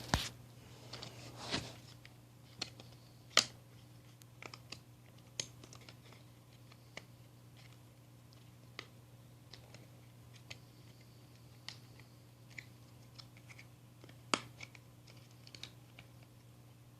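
Scattered small clicks and knocks of car door-handle parts being handled and pulled apart, over a low steady hum; the sharpest clicks come about three and a half seconds in and again near fourteen seconds.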